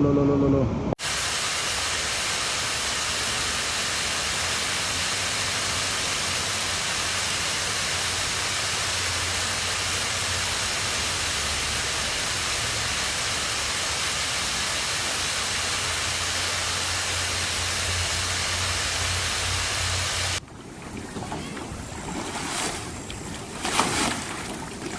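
Steady, even rushing of water that stops abruptly about twenty seconds in, with a short shout just before it starts and scattered clicks and knocks after it.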